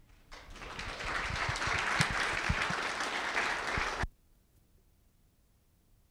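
Audience applauding, building over the first second and cutting off suddenly about four seconds in.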